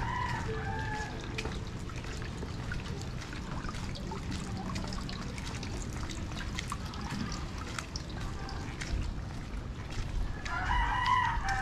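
A rooster crows once near the end, over a steady background of rain with water dripping and splashing.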